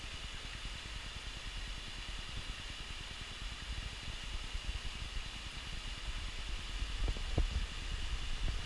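Steady outdoor hiss with a low rumble of wind buffeting the action-camera microphone, and two soft thumps about seven seconds in.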